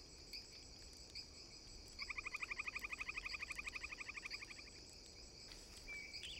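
Jungle night ambience of a steady insect chorus with soft repeated chirps. About two seconds in, a loud rapid trill of about a dozen pulses a second starts and runs for nearly three seconds, and a short chirp comes near the end.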